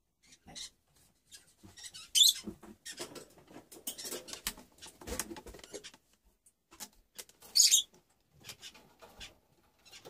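Male Eclectus parrot moving about on its cage perch: scattered small clicks, scratches and squeaks, with two short hissing bursts, one about two seconds in and one just before eight seconds.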